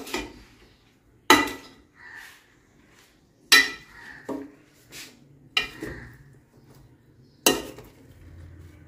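A metal spoon stirring a raw vegetable mixture in a stainless-steel karahi, knocking against the pan in sharp clanks about every two seconds, with softer scrapes and knocks between. The mixture is not yet on the heat.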